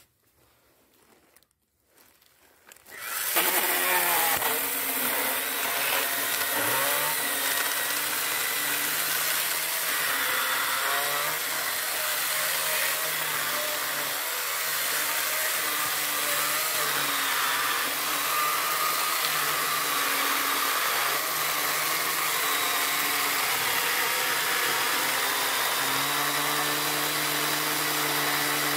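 Worx WG324E 20 V battery-powered mini chainsaw starting about three seconds in and running steadily as its chain cuts through a log, the motor's pitch wavering a little as it bites into the wood.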